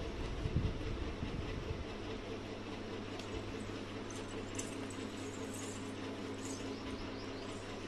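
Steady low background hum, with faint scratching of a fine-tooth plastic lice comb drawn through oiled hair in the second half.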